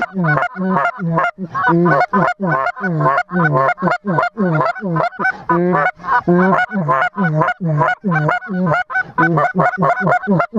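Goose honking: a fast, continuous run of loud honks, about three a second.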